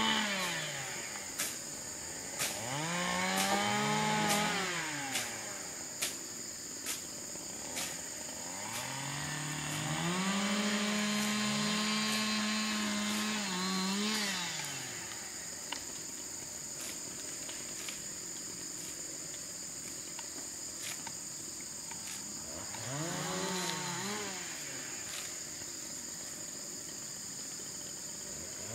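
A small engine revving up and dropping back: once as it starts, again about three seconds in, held high for several seconds around ten seconds in, and briefly again near twenty-three seconds. Under it runs a steady high insect drone, with a series of sharp knocks about once a second through the first ten seconds.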